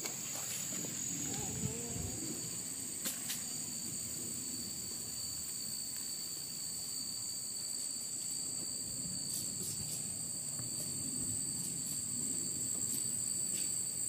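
Insects calling in a steady, unbroken chorus at two high pitches, with a few faint clicks.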